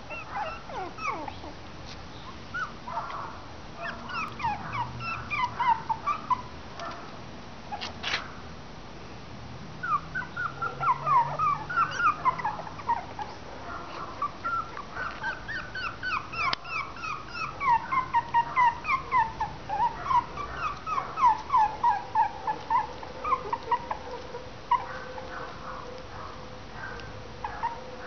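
Three-week-old Westie-Maltese cross puppies whimpering and squeaking in runs of short, high, falling squeaks. Several of them overlap at times, and the squeaking thins out near the end.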